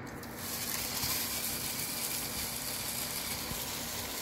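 A slice of turkey ham laid into hot oil in a nonstick frying pan starts sizzling about half a second in, then fries with a steady hiss.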